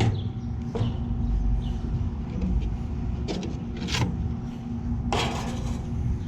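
Several short metallic knocks and a brief clatter from handling and taking apart an old gas furnace's sheet-metal parts, over a steady low hum.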